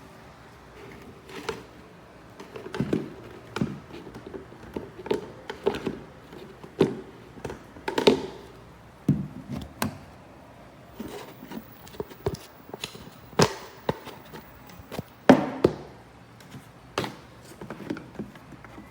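Irregular light knocks, taps and clicks, about one or two a second, with no motor running.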